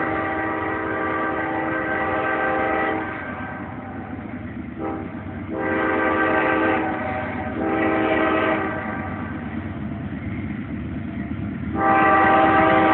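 Nathan K5LA five-chime air horn on a CSX freight locomotive sounding a pattern of blasts: a held blast that stops about three seconds in, a short blip, two blasts of about a second each, then a long blast starting near the end. The train's steady rumble runs underneath.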